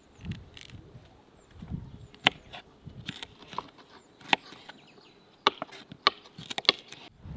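Kitchen knife slicing a green bell pepper on a wooden cutting board: irregular sharp taps as the blade meets the board, bunching together near the end.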